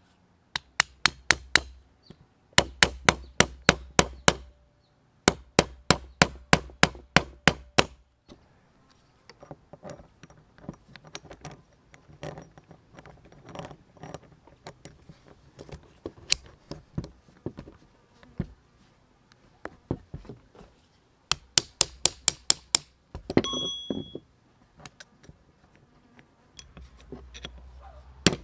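Steel gears and parts of an old hand drill being fitted into its metal housing: runs of sharp metallic clicks, about four to five a second, in several bursts with fainter clicking between them, and a brief metallic ring late on.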